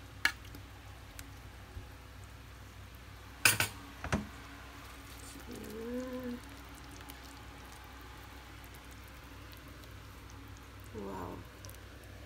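A few sharp clinks of a spoon against the serving plate as creamy mushroom sauce is spooned over pork steaks; the loudest comes about three and a half seconds in. A short pitched call that rises and falls is heard about six seconds in, and again briefly near the end.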